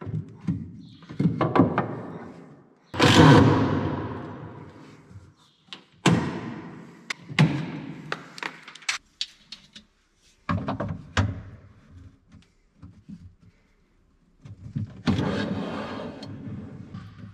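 A mallet knocking a pine rail into a wooden workbench frame: a series of separate hollow thunks a second or more apart, some leaving a short ringing tail from the frame.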